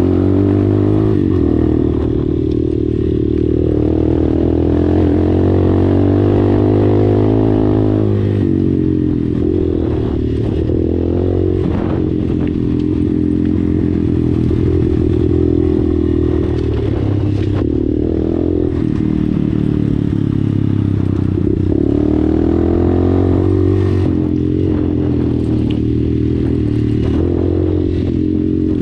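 Dirt bike engine running under way, its pitch rising and falling again and again with the throttle, over frequent knocks and rattles from the bike on a rocky trail.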